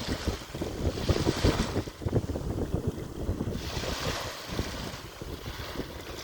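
Sea waves washing onto a beach, with the hiss of the surf swelling twice, about a second in and again about four seconds in. Wind buffets the microphone throughout with a low rumble.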